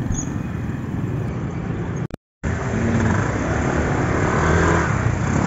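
Motor scooter traffic on a busy street: engines running and road noise, with a short dropout to silence about two seconds in.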